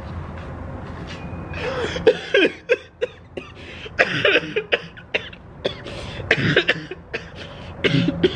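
A man coughing in four separate bouts, roughly two seconds apart.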